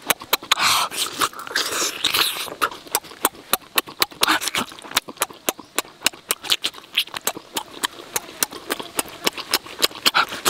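Close-up eating sounds of a person biting and sucking on rock-roasted squid: wet lip smacks and chewing clicks, several a second, with a hissing slurp in the first couple of seconds.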